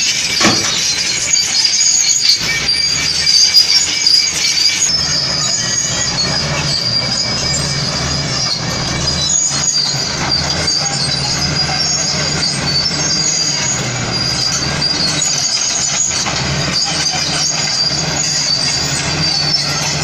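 Crawler bulldozer at work: its diesel engine runs steadily while the steel tracks give off a continuous high-pitched squeal. The first few seconds are a little louder, with a few peaks.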